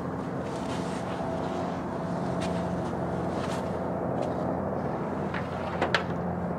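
Steady low hum of distant road traffic, with light knocks as a person climbs into a pickup truck bed, and two sharp clicks near the end as the tailgate is pulled shut.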